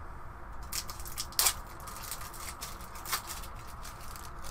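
Plastic wrapping on a deck of cards being cut and pulled open with a utility knife: a run of crinkling crackles and snips, the sharpest about one and a half seconds in and again about three seconds in.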